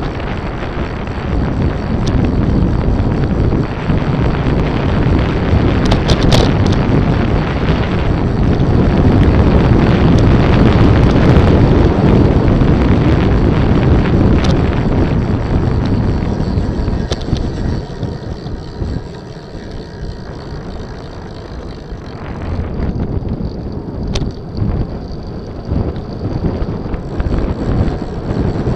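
Wind rushing over the microphone of a camera on a moving rider, swelling loudest around the middle and easing off for a few seconds past two-thirds, with a few light clicks and rattles.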